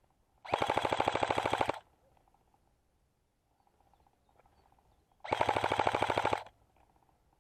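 Airsoft gun firing two full-auto bursts of rapid clicking shots, each a little over a second long, about four seconds apart.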